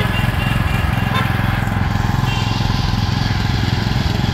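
Small Kubota petrol engine of a four-wheel-drive dump cart running steadily, just after being pull-started, while it drives the hydraulic pump that raises the dump bed.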